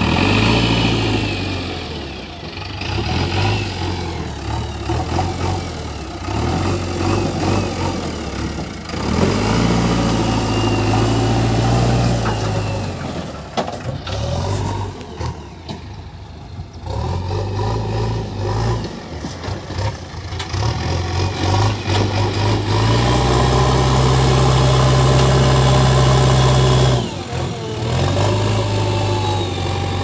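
JCB backhoe loader's diesel engine running under load, its heavy low rumble revving up and easing back every few seconds as the machine works the soil. The engine is loudest for a few seconds near the end, then drops off suddenly.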